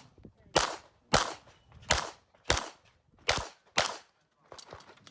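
A Production-division competition pistol fired rapidly, six shots in three pairs about half a second apart.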